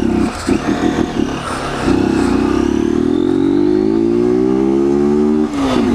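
Honda CG 160 Fan's single-cylinder four-stroke engine running on ethanol as the motorcycle pulls away: the engine note climbs steadily for about three seconds, drops suddenly near the end at a gear change, and picks up again. It is pulling without misfiring.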